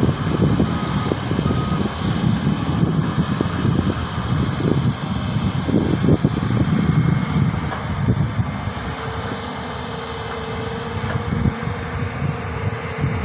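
Hydraulic excavator's diesel engine running under working load, heard up close, a dense rumble that rises and falls as the arm moves. A steady whine joins about two-thirds of the way through.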